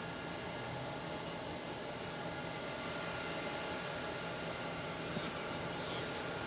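Diesel-electric freight locomotive running steadily at low power as it creeps slowly forward: a steady engine drone with a constant high tone above it.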